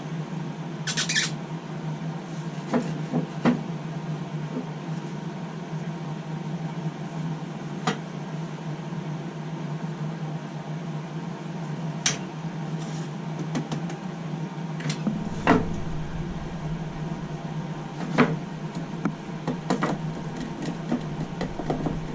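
Steady low hum in a woodshop with scattered clicks and light knocks as tools and wood are handled while the table saw cut is set up.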